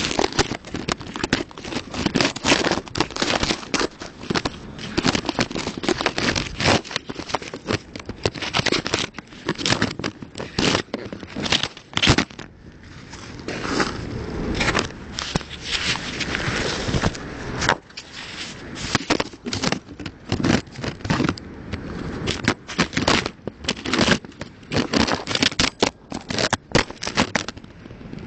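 Hand tools scraping and knocking on stone and gravel in dense, irregular clicks and scrapes, with a brief lull about twelve seconds in.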